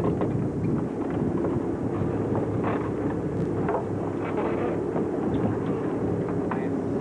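Boat engines running steadily, a constant low hum, with wind on the microphone.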